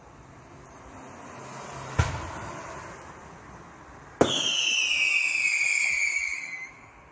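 Fireworks: a hiss builds up to a sharp bang about two seconds in. A second sharp bang follows, and then a loud whistle that falls slowly in pitch for about two and a half seconds.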